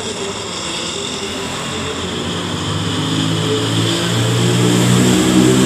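A motor vehicle engine droning, growing steadily louder through the second half.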